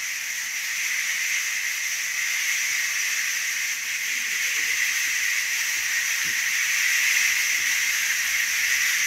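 Homemade rain stick being shaken, its fill trickling through it in a steady, high, rain-like hiss that changes as the shaking goes on.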